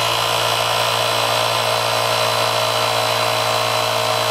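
Electric hydraulic power unit of a BVA pipe swaging (coupling) machine running steadily, an even hum, as it drives the cylinder in the swage position to pull the swage block through with no pipe loaded.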